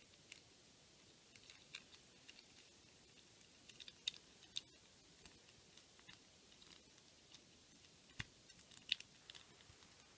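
Faint, scattered clicks and crackles of stiff plastic packaging being worked at by hand while a figure is pried out of it, with a few sharper clicks about four seconds in and again around eight to nine seconds in.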